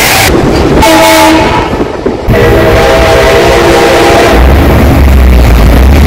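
Multi-chime train horn sounding a chord in two blasts, a short one about a second in and a longer one from a little after two seconds in, the audio boosted until it distorts and clips. A heavy low rumble sets in near the end.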